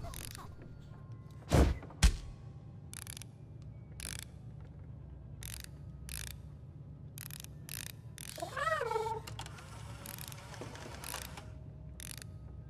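A cat meows once, about two-thirds of the way through, a short call that rises and then falls. Around it are irregular clicks and knocks, with two loud thumps about two seconds in.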